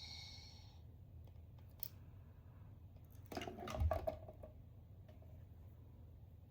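The tail of a sound toy's electronic tone dies away in the first second. Then come a few small clicks and a brief clatter with a soft thump about three and a half seconds in, from handling the capsule sound toys.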